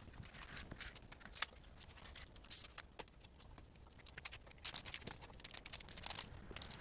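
Faint scattered clicks, taps and rustling of hand work with flashing materials, with a few sharper ticks among them.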